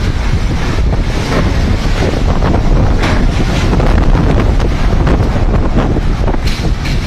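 Strong wind buffeting the microphone: a loud, steady low rumble of wind noise with a few brief sharper gusts.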